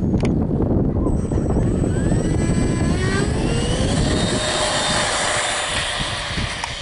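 Radio-controlled Eurofighter model jet throttling up for its takeoff run: a loud rush of air with a whine that rises in pitch from about two to four seconds in, then holds steady as the model accelerates.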